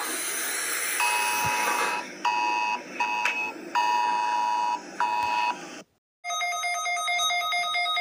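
Emergency alert alarm: static hiss, then a two-tone attention signal with both tones just below 1 kHz, switched on and off in five uneven pulses. It cuts off near six seconds, and after a short gap a different alarm starts with several high steady tones and fast beeping.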